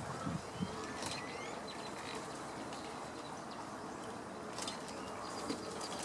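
Birds calling at a wading-bird rookery: scattered short rising chirps and a few brief clicks over a steady background hiss.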